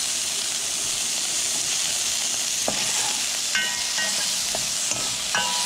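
Chopped okra, onion and tomato sizzling steadily in hot oil in a pot. A spoon stirs them, with a few light knocks and scrapes against the pot about halfway through and again near the end.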